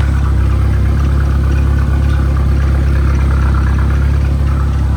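Freshly overhauled turbocharged 2.3-litre four-cylinder engine idling steadily.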